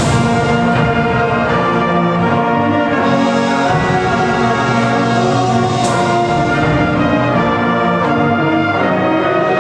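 A high school concert band playing live: brass and woodwinds holding sustained full chords that change every second or two, with bright accents right at the start and about six seconds in.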